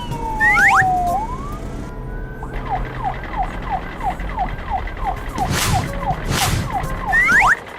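Siren-like cartoon sound effects: a long falling whistle-like slide, then a rapid run of short falling chirps, about four a second, with a quick rising sweep near the end.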